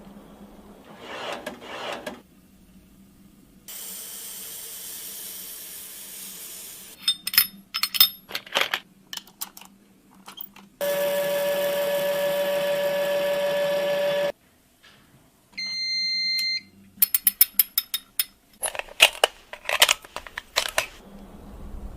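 A sequence of sharp mechanical clicks and knocks, a steady pitched machine hum lasting about three and a half seconds, and a short electronic beep.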